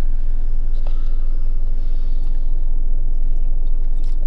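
Steady low rumble, with a faint click about a second in and another near the end.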